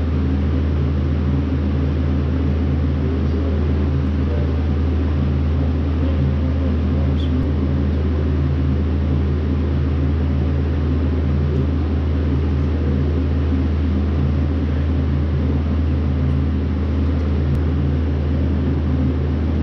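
A steady low mechanical hum at a constant level throughout, with a few faint clicks of parts being handled.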